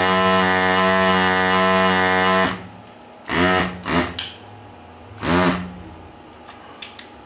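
Electric desoldering gun's built-in vacuum pump buzzing steadily while it sucks up molten solder. It cuts off abruptly about two and a half seconds in, then comes a few brief bursts.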